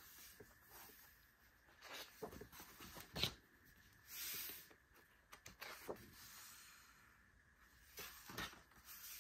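Pages of a thick, heavy-paper photobook being turned and smoothed by hand: faint paper rustles and sliding, with a sharp tick about three seconds in and a brief swish a second later.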